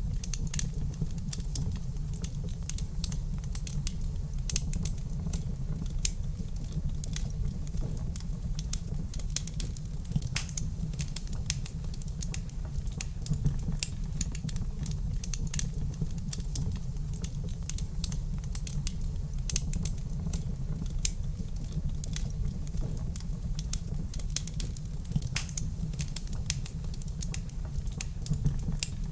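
Wood fire crackling in a fireplace: dense, irregular snaps and pops over a steady low rumble.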